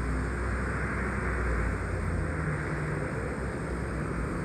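A hybrid diesel-electric transit bus, a 2009 NABI 40-LFW, running close by with a steady low engine and road rumble.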